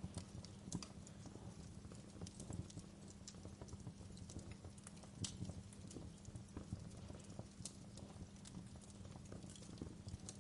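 Wood fire crackling in a fireplace: irregular sharp pops and snaps, a few each second, over a low steady rumble, with soft rain hiss behind. The loudest pops come about a second in and about halfway through.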